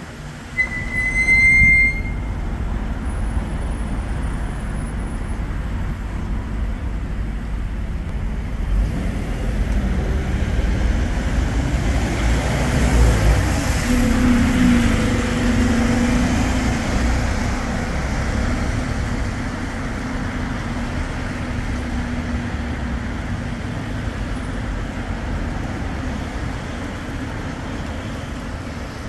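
Street traffic with a bus engine running as a bus pulls past close by, loudest about halfway through and then fading. There is a short high beep near the start.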